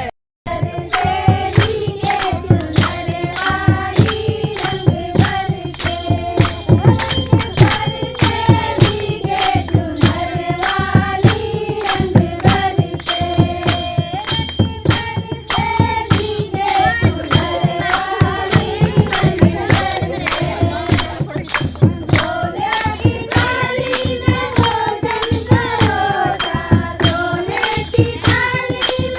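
Holi folk song: singing that wavers in pitch over a fast, even beat of percussion strokes with a jingling edge. The sound cuts out briefly just after the start.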